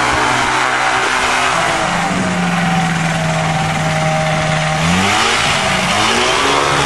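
Small single-engine propeller plane's engine and propeller running as it taxis close past on snow; the engine note holds steady for a few seconds, then rises as it revs up about five seconds in.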